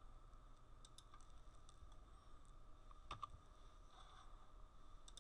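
Near silence: room tone with a faint steady electrical hum and a few faint, scattered clicks at a computer, the clearest about three seconds in.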